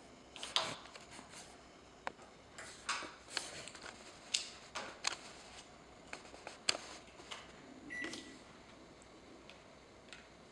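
Small irregular clicks and taps of an iPhone 6 and its small tools and parts being handled during a screen replacement. There is a short faint beep-like tone about eight seconds in.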